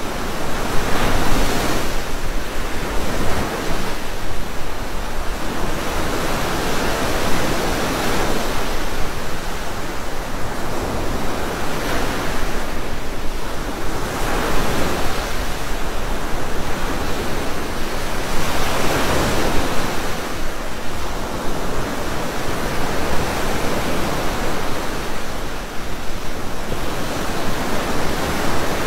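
Loud rushing of floodwater, a continuous noise that swells and eases every couple of seconds.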